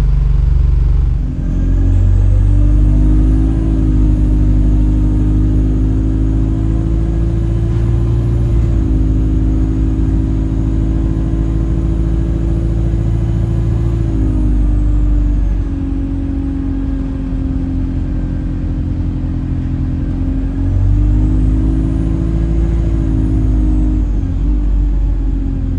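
Alexander Dennis Enviro200 bus running under way: a low engine rumble with a steady horn-like droning tone over it that shifts in pitch a few times. The drone is an abnormal noise, which the owner suspects comes from the gearbox.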